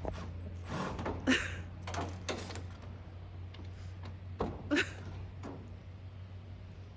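Several irregular knocks and thuds over a steady low hum.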